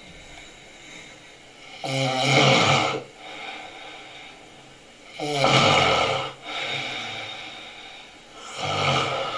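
A sleeping man snoring heavily: three loud, rattling snores about three seconds apart, with quieter breathing between them.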